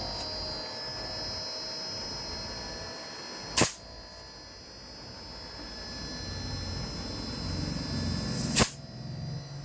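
Daikin inverter air conditioner running with a steady hum and a faint high whine, broken twice by a sharp click about five seconds apart.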